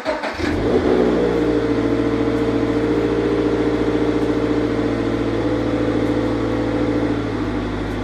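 Scion FR-S's flat-four engine running steadily after a rough first second.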